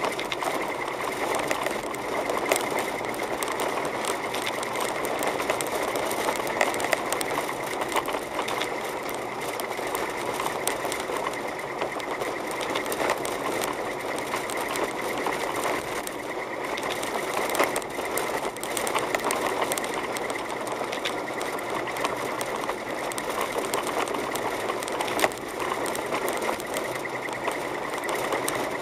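Car driving on a snow-covered road, heard from inside the cabin: a steady running noise with a fast, fine rattling clatter throughout.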